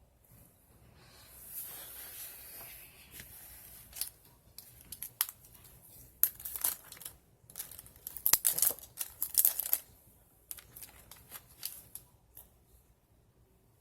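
Paper being handled for a collage glue book: a drawn-out rasp of paper about a second in, then a run of sharp crackles and clicks, loudest around eight to ten seconds in.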